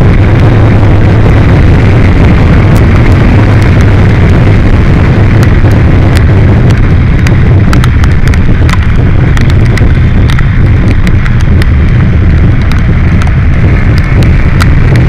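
Loud, distorted wind roar buffeting the camera microphone on a moving motorcycle, with a steady low engine and road drone underneath and scattered sharp crackles and pops.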